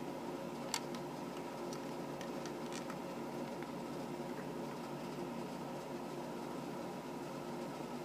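A few light plastic clicks as a LEGO puzzle box is handled and poked with a pin, the loudest about a second in and the rest within the first three seconds, over a steady hum.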